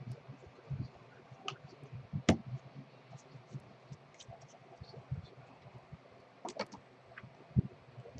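Trading cards being handled: scattered soft clicks and taps as cards are flipped and set down, over a low steady hum.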